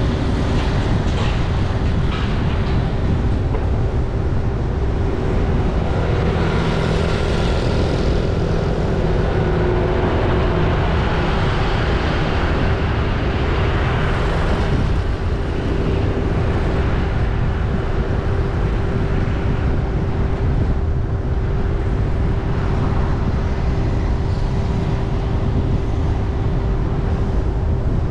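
Steady road noise of a vehicle driving through city streets: a continuous low rumble with a constant mid-pitched hum over it.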